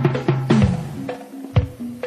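Music with drums and percussion: sharp, regular drum hits over sustained low notes.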